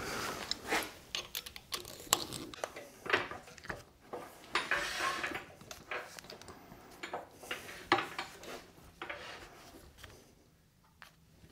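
Irregular metal clicks, clunks and short scrapes from handling and adjusting a drill clamped in a drilling stand at the lathe, with no drill running. The sounds stop about ten seconds in.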